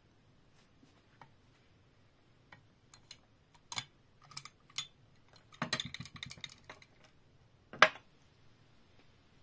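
Small glass perfume vials and bottles clinking and clicking against ceramic swan holders as they are handled: scattered clicks, a quick cluster of rattling clicks about six seconds in, and one louder knock near the end.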